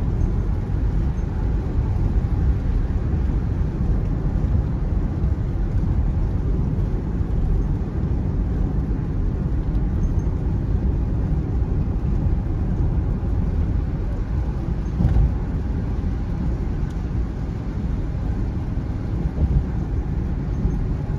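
Steady road noise inside a car cabin at highway speed on a wet road: a low rumble of tyres and engine. There is a brief louder bump about fifteen seconds in.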